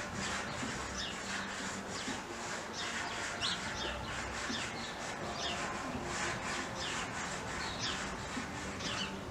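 Garden birds chirping in quick, repeated short calls, several a second, over a steady background hiss.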